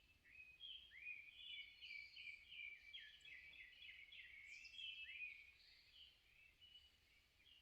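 Songbirds singing, faint: quick runs of short chirps and upward-sweeping whistles that are busiest for the first five seconds and thin out near the end.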